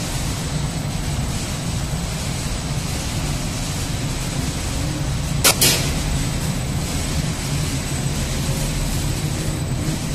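Microwave sterilization machine running: a steady low hum with hiss and a thin high whine, broken by two sharp clicks about halfway through.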